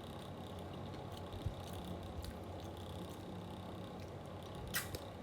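Steady low hum of an electric fan running, with a light knock about one and a half seconds in and a sharp click near the end.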